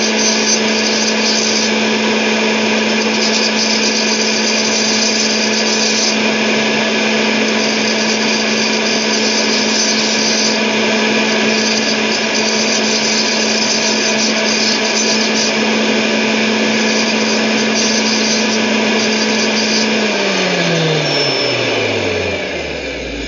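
Electric circular saw running steadily, with repeated spells of high scraping as a thin steel umbrella-rib wire is held against the spinning wood-cutting blade to grind it to a fine point. About twenty seconds in it is switched off and the motor's hum falls in pitch as it spins down.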